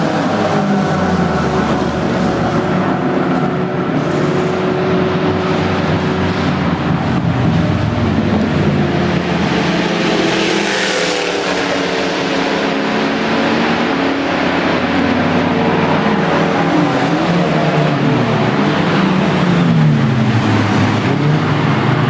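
Racing car engines on the circuit revving up and down and passing, several at once, their pitch rising and falling as they go by, with one passing loudest about eleven seconds in.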